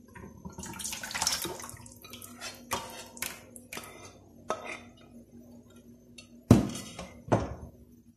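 Thick cornstarch mixture pouring and dripping from a pot into a stainless steel bowl, with scattered taps and scrapes of the pot and a plastic ladle against the metal. Two loud metallic clanks with ringing near the end.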